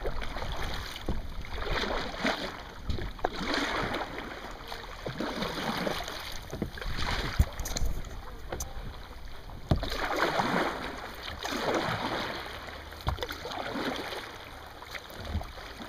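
Water splashing against a sea kayak's hull as it is paddled, with surges of splash every second or two and a few sharp knocks.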